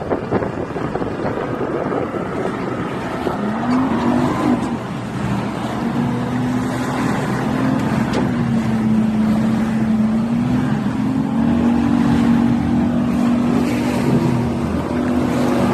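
Motorboat engine running, its pitch rising about three and a half seconds in and then holding steady, with a second engine note joining later, over a constant rushing noise.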